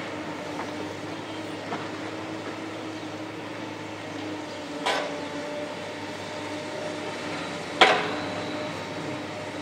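Tracked demolition excavators running with a steady diesel hum, and two sharp impacts of concrete being struck and broken, the second, about eight seconds in, the louder.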